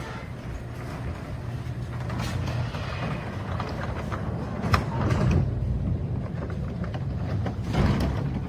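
Steady low mechanical hum with a few sharp clicks and clunks, the loudest about halfway through and another cluster near the end.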